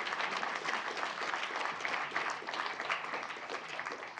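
Audience applauding, a dense steady patter of many hands clapping that begins to thin out at the very end.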